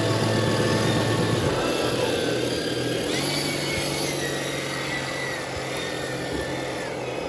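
Electric motor and geared drivetrain of a 6x6 RC crawler truck whining as it crawls over rock, the whine rising in pitch about halfway through as the throttle opens.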